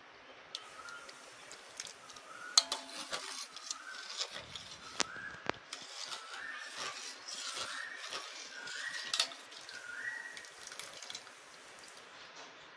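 Steel ladle clinking and scraping against a steel pot while stirring milk with soaked rice ada pieces, milk dripping back off the ladle. In the background, a short whistled note repeats about once a second, each one a little higher than the last.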